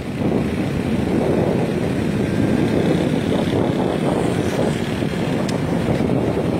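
Wind rushing over the microphone over the steady running of a small motorcycle engine at road speed.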